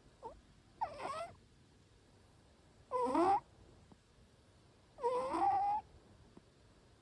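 A Munchkin cat snoring in its sleep: three high-pitched, wavering snores about two seconds apart, one on each breath, with a short faint one just before the first.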